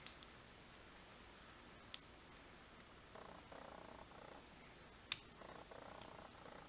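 Faint sounds of a pin-tumbler lock being picked: three sharp clicks of metal on metal from the pick and tension wrench, and short stretches of quiet rasping as the hook works the pins.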